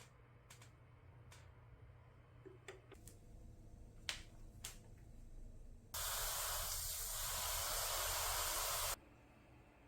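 A few faint clicks, then a steady hiss that starts abruptly about six seconds in and cuts off sharply three seconds later.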